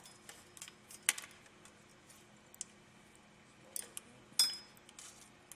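Metal hand tools clicking and clinking against metal fittings as a wrench is worked on a fastener: a few sharp clicks, the loudest about a second in and near four and a half seconds, the last with a brief metallic ring.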